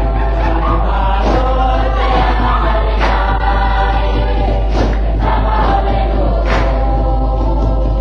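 A recording of a Samoan choir singing a song.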